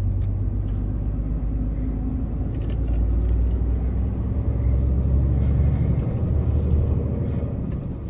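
Scania truck's diesel engine and road noise heard from inside the cab: a steady low drone as the truck climbs a mountain road under load.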